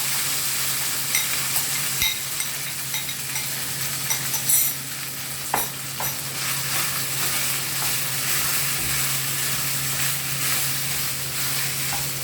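Oil with mustard seeds, curry leaves and green chilli sizzling steadily in a pan, stirred with a spoon that scrapes and knocks against the pan a few times.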